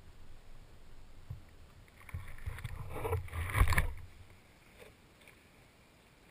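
Handling noise on a small camera's microphone: rustling and bumping as the camera is held and set down on grass, loudest just before it comes to rest about four seconds in. It then goes near silent, with one faint tick.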